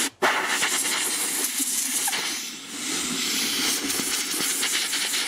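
Compressed-air blow gun blasting air into the threaded centre hole of a new oil filter: a loud, steady hiss that starts just after a short click and eases briefly about two and a half seconds in. The blast clears fine metal swarf left in the threads by the thread-cutting process.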